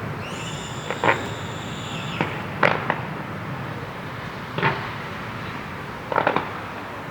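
Fireworks going off: a high whistle climbs and holds for about two seconds near the start, over a string of irregular bangs, the loudest two about a second and nearly three seconds in, and a quick triple crackle near the end.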